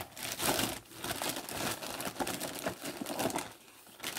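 Clear plastic zip-lock bag crinkling and rustling as it is pulled open and handled, in irregular crackles that die down near the end.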